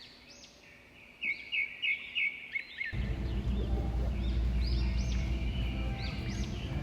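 Pet budgerigars chirping, with a quick run of sharp chirps about a second in. A low steady hum comes in about halfway through underneath the chirping.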